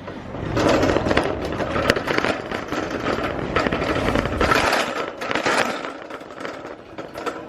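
Shopping cart being pushed, its wheels rumbling and the wire basket rattling and clattering; the rolling rumble stops about four and a half seconds in, leaving lighter clatter.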